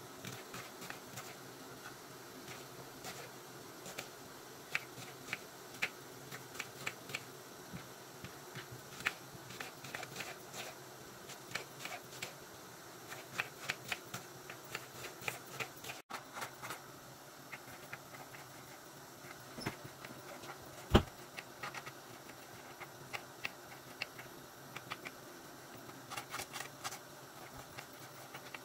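Kitchen knife chopping on a wooden cutting board: faint, irregular taps as onion and then ginger are diced, with one louder knock a little past two-thirds of the way through.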